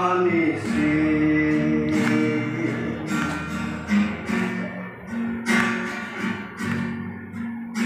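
Acoustic guitar strummed, with a man's held sung note trailing off in the first couple of seconds, then spaced chord strums of the guitar alone.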